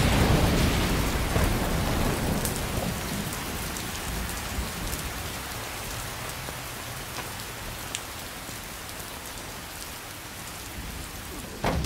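Heavy rain pouring down, with a low thunder rumble in the first couple of seconds; the rain hiss slowly grows quieter.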